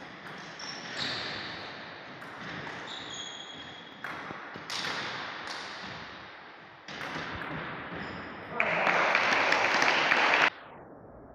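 Table tennis play in a hall: the ping-pong ball clicking off bats and table, with a few brief high squeaks. A loud burst of noise lasts about two seconds near the end.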